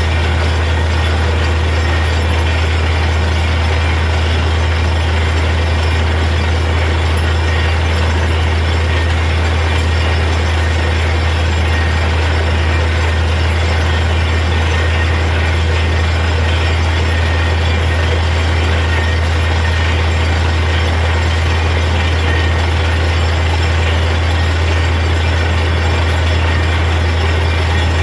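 Truck-mounted borewell drilling rig running steadily while drilling: a deep, even hum under a dense mechanical noise that does not change.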